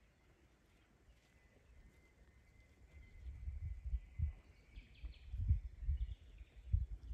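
Wind buffeting the microphone in an open field, in deep irregular gusts that grow stronger from about three seconds in. A faint thin high tone sounds in the background in the first part.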